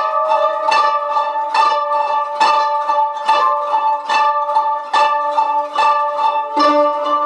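An ensemble of koto, Japanese 13-string zithers, plucked in unison. The notes come in a steady pulse of about two a second and each one rings on, and a lower note joins near the end.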